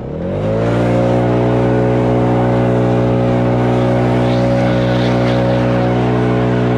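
A small motor starts, speeding up over the first second, then runs loudly and steadily at an even pitch.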